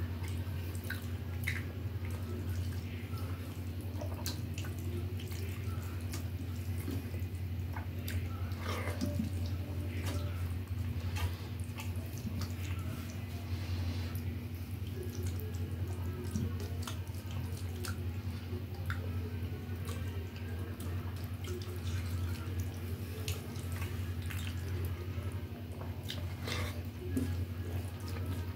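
Fingers squishing and mixing wet sambar-soaked rice on a steel plate, with scattered wet clicks and chewing as handfuls are eaten, over a steady low hum.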